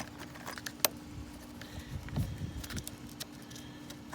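Scattered metallic clicks and clinks of a socket wrench working loose a corroded battery terminal clamp, with one sharp click a little under a second in, over a steady low hum.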